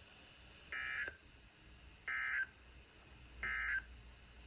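Three short bursts of digital data tones from a NOAA Weather Radio, about a second and a half apart: the SAME end-of-message code that closes the severe thunderstorm warning broadcast.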